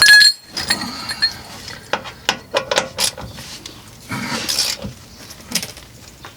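Steel hand tools clinking and clicking as a nut is worked off a lower control arm bushing bolt with a socket and wrench. A sharp metallic clink with a brief ring opens it, followed by irregular lighter clicks and a short scrape about four seconds in.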